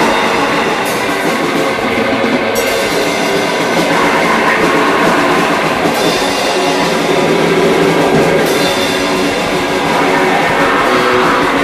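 Noisecore recording: a loud, dense wall of distorted noise over drums, its texture shifting abruptly several times.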